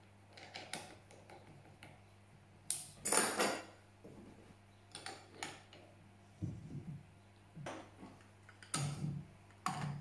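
Small metal clinks and clicks of a spanner on the collet nut of a Makita RTC0700C compact router as a bit is fitted and tightened, with a few dull knocks as the tool and its base are handled. The loudest clatter comes about three seconds in.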